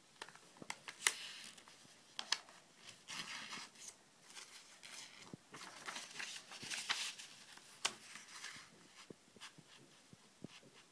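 A sheet of origami paper being handled, opened out and creased by hand: paper rustling, with sharp crackles and ticks as it is folded and pressed flat.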